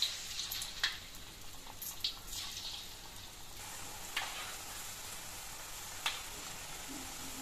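Moong manda dumplings deep-frying in hot oil in an iron wok: a steady sizzle, with a few light clicks as a metal spoon turns them in the pan.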